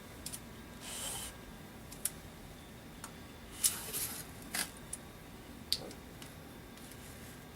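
Bore snake pulled through a 12-gauge over-and-under shotgun barrel: faint rubbing swishes of the cord inside the bore, with a few light clicks and knocks of the gun being handled.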